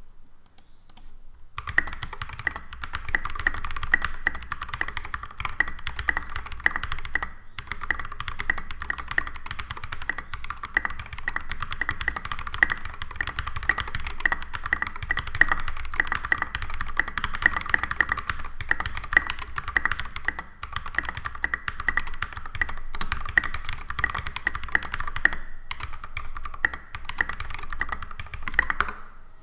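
Steady fast typing on a custom mechanical keyboard with lubed Holy Red Panda tactile switches, a brass plate and thick SA-profile double-shot ABS keycaps, giving deep "thock" keystrokes. The typing starts about a second and a half in and pauses briefly a few times.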